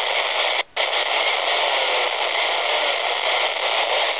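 Wouxun KG-UVD1P handheld radio's speaker hissing with FM static, its squelch open on the weak ISS downlink on 145.800 MHz; the hiss breaks off for a moment under a second in, then carries on.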